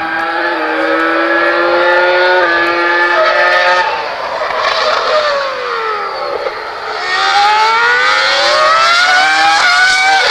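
Formula 1 car engine at high revs. It climbs in pitch with short steps at each gear change, drops for a couple of seconds as the car slows, then climbs again through another gear change near the end.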